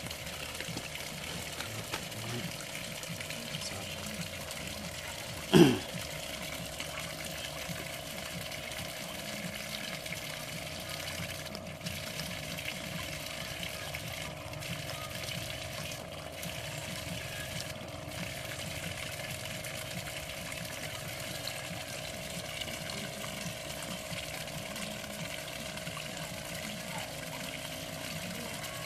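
Small pond fountain spraying onto the water surface, a steady splashing. About five and a half seconds in, one short loud sound slides down in pitch.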